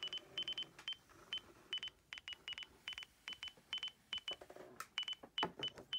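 Short, high beeps from a Bluetooth beacon-scanner app on an iPhone, about three a second and unevenly spaced, some in quick pairs. The app beeps as it picks up the Lotton iBeacon's signal, and the sound falls as the beacon is moved away.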